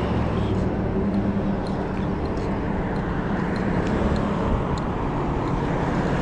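Steady rumble of wind and road noise from riding a fixed-gear bike, with street traffic passing and faint light ticks scattered through it.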